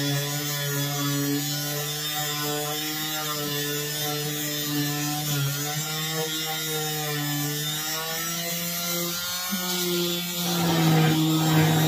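Small electric detail sander running against a wooden axe handle, sanding it down: a steady motor hum that wavers slightly in pitch. About ten seconds in, the hum rises a little and the sanding gets louder and scratchier.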